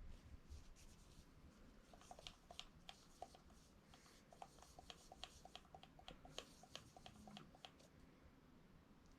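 Faint handling noise from a camera lens being cleaned: a quick run of light clicks and small rubbing sounds through the middle of the stretch.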